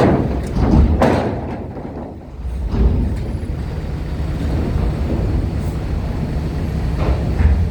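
Heavy vehicles' engines running in a steady low rumble as trucks and buses drive on and off a roll-on/roll-off ferry, with short loud surges about a second in and again near the end.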